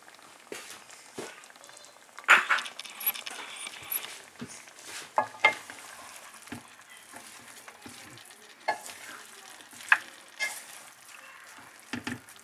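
Metal spatula scraping and clanking against a metal pan in irregular strokes as lamb, onions and tomatoes are stirred. A faint steady sizzle of the meat frying runs underneath.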